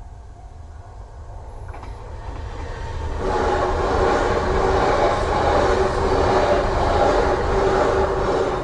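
Yamagata Shinkansen E3 series train passing over a level crossing: a rushing rail noise builds from about two seconds in, stays loud for about five seconds, then begins to fall away near the end.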